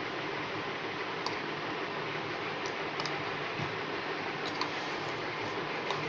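Steady background hiss with a handful of faint, scattered clicks.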